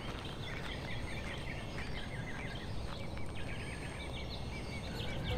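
Small birds chirping in quick repeated notes over a steady low outdoor background noise.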